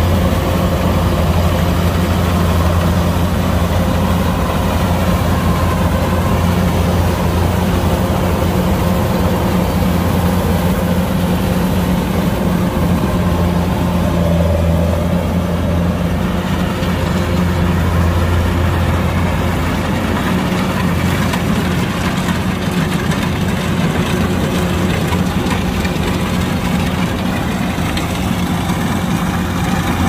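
Kubota DC-105X rice combine harvester's diesel engine running steadily, a constant low drone with no change in speed.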